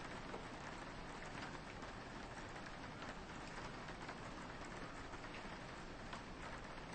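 Soft rain falling steadily, with many small drops tapping against a window pane.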